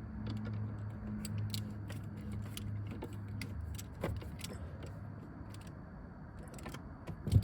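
Irregular small metallic clicks and rattles of a hand tool and a Torx nut being worked in by hand, over a steady low hum, with a single louder knock near the end.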